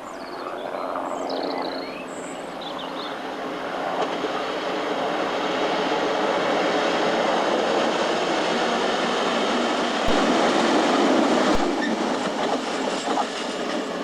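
Freight train passing on the mainline, wagons rumbling and clattering along the rails. It builds to its loudest about ten seconds in, with two sharp knocks then, and eases a little near the end.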